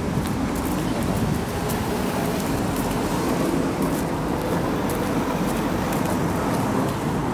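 Steady road traffic noise from cars on the street alongside, a continuous low rumble.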